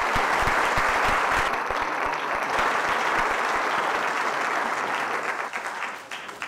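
Audience applauding, a steady wash of clapping that dies away near the end.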